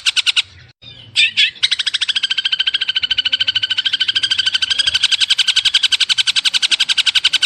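A songbird's rapid, even rattling trill of about eleven notes a second. It breaks off about half a second in, gives a short chatter, then resumes. This is bird song from a masteran, a tutor recording for training long-tailed shrikes (cendet).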